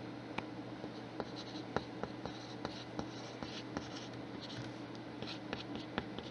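Writing by hand on paper: short scratchy strokes and small ticks of the writing tip, in an irregular stop-start rhythm.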